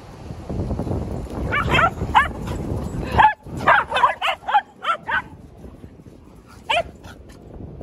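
Dog barking in a quick series of short, high yips during rough play, about eight or nine in a row, then one more bark near the end. A low rumble sits under the first few seconds.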